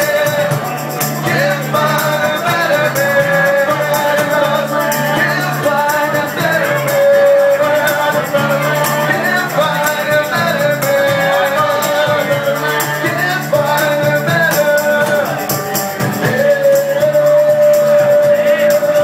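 Live acoustic band playing: acoustic guitar, bass and a man singing into the microphone, with light percussion keeping a steady beat.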